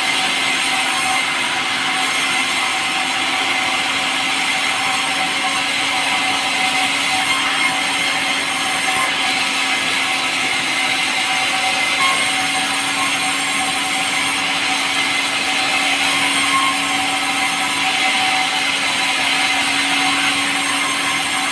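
A power saw running steadily as it cuts through pulai, a light, soft timber, with an even hum and hiss that does not change.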